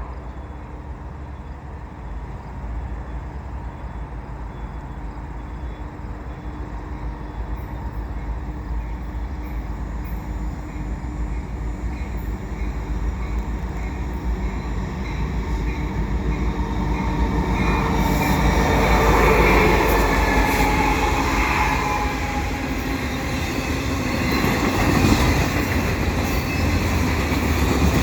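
Canadian National freight train of auto rack cars rolling past: a steady low rumble that slowly grows louder, with the rolling and wheel noise of the cars getting stronger from about 18 seconds in.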